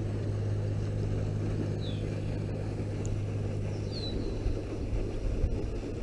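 Steady low motor hum of a floating pond fountain aerator running, with a wash of spraying water. A bird gives a short, high, falling chirp twice, about two seconds apart.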